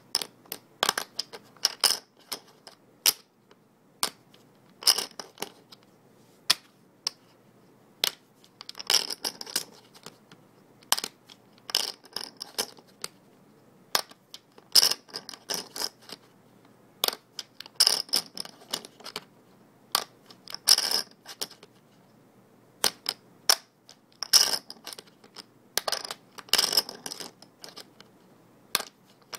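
Poker chips shuffled by hand: bursts of rapid clicking as the stacks riffle together, recurring every second or two with short pauses between.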